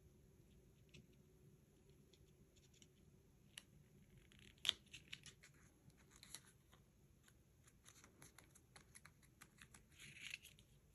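Near silence with faint, scattered taps and clicks of cardstock pieces being handled and pressed into place, the sharpest about five seconds in, and a light paper rustle near the end.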